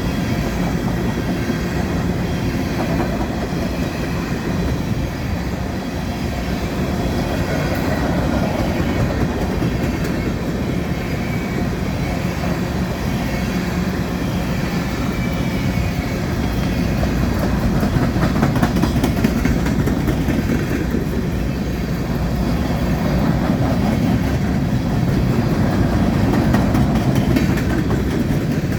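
Empty BNSF coal train's cars rolling past: a steady rumble with the clatter of steel wheels over the rail joints.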